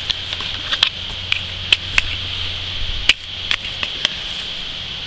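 Irregular sharp clicks and snaps of dry bones and brush being handled, about a dozen spread over a few seconds, over a steady high hiss.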